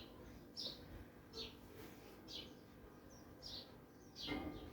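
A bird chirping faintly: short, high, falling notes repeated roughly once a second.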